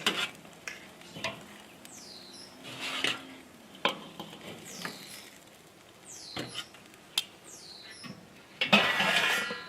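Metal utensils clinking and scraping on the grill grate of a Weber charcoal kettle as smoked chicken quarters are handled: scattered single clinks, then a louder stretch of scraping and clattering near the end.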